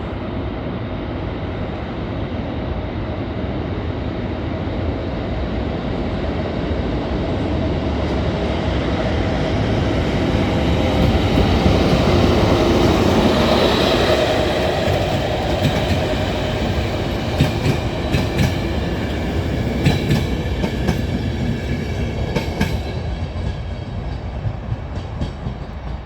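BDŽ class 44 electric locomotive hauling a passenger train past: the rumble builds to its loudest about halfway through, then the coaches' wheels clatter in a quick clickety-clack over the rail joints as the train goes by.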